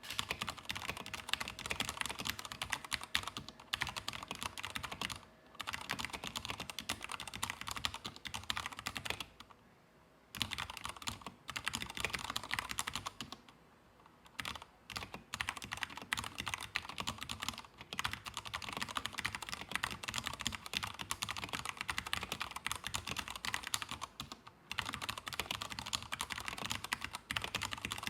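Fast typing on a stock Akko 3068 mechanical keyboard with unlubricated switches, keys clacking in dense runs. There are a few short breaks, the longest about a third of the way in.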